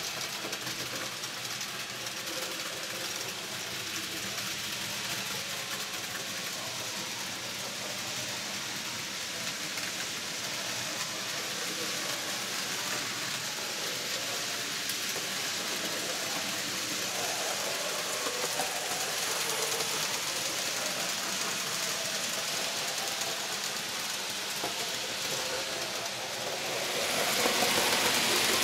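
N gauge model trains running on the layout: a steady whirr of small electric motors and wheels on rail. It gets louder near the end as a train passes close by.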